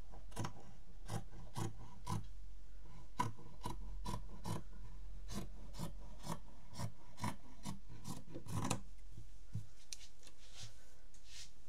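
Fabric scissors cutting a length of printed stretch-cotton cloth, a short crisp snip about twice a second, the strokes thinning out near the end.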